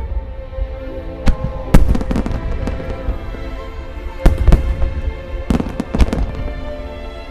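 Aerial firework shells of a starmine bursting in quick succession, a string of sharp bangs with the thickest run about four to six seconds in, over steady music.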